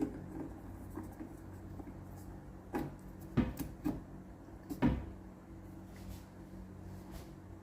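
Vacuum tubes and a tube tester being handled: a handful of sharp clicks and knocks, irregularly spaced and mostly in the middle, over a low steady hum.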